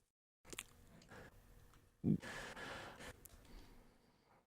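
A person sighing, a breathy exhale about two seconds in that fades over about a second, among fainter breaths and small mouth noises. The audio cuts to dead silence briefly at the start and just before the end, where it has been spliced.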